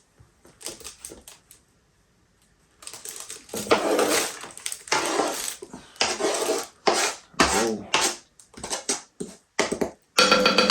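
Utensil scraping and clattering against dishes as diced onion is scooped into a slow cooker's crock: a string of irregular clinks and scrapes that starts about three seconds in, after a few faint clicks.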